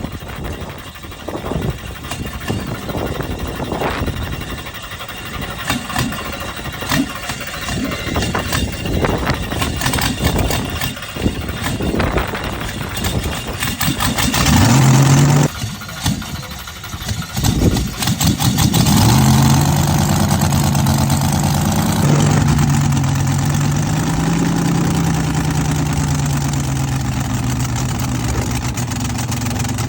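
A cold drag car engine being cranked on the starter and slow to start: it catches briefly about halfway through and dies, cranks again, then fires and settles into a steady idle for the last third.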